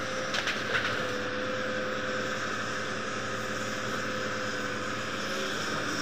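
Hitachi 210F excavator's diesel engine running steadily under work, with a couple of short sharp cracks about half a second in.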